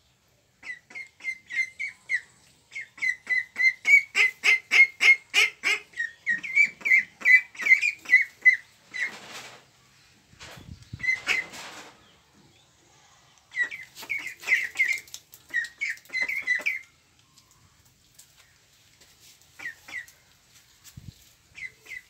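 Young Pekin ducks giving rapid runs of short high peeping calls, several a second, in two long bursts with a pause between and only scattered peeps near the end. A couple of short rustling noises come in the middle.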